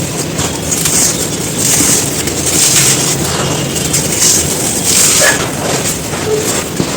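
Dry packed sand crumbling and crunching continuously, with many small crisp breaks.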